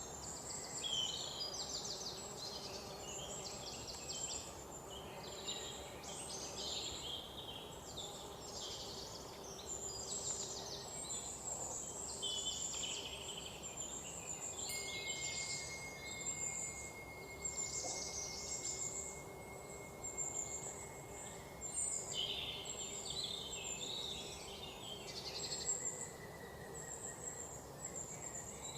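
Small birds chirping and trilling in quick, high-pitched phrases, one after another. A thin steady high whistle-like tone holds for about ten seconds in the middle.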